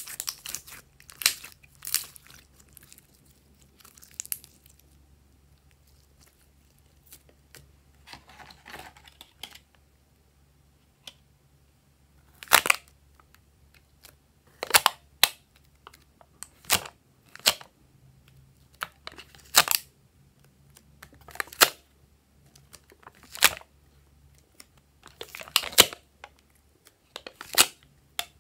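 Glossy slime squeezed by hand, with wet crackling squishes, followed by single sharp clicks and snaps about every two seconds as red moulded pieces are handled and pressed into the slime.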